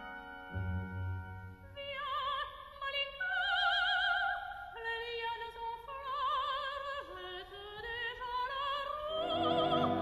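Operatic singing: a voice holds high, sustained notes with wide vibrato over lower instrumental accompaniment.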